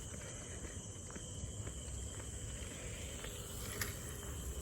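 Steady chorus of night-singing insects, which the walker takes for crickets, making an even high trill, with faint regular footsteps.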